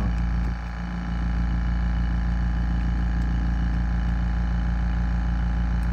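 Fortress 1-gallon Ultra Quiet oil-free air compressor (model FT1135UQ) running steadily, its motor and pump giving an even hum.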